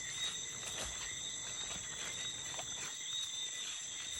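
A rainforest insect chorus, crickets and similar insects calling in a steady high-pitched drone at several pitches, with a few faint knocks underneath.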